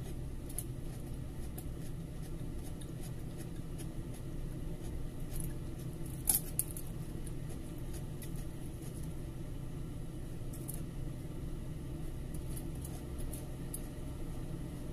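Eating sounds: chewing and fingers picking apart fried milkfish and rice, small scattered clicks and crackles over a steady low hum, with one sharper click about six seconds in.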